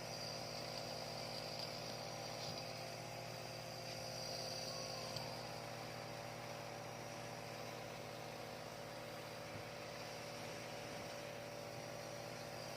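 Compressor nebulizer running with a steady motor hum and buzz, misting medicine for an infant's cold and cough.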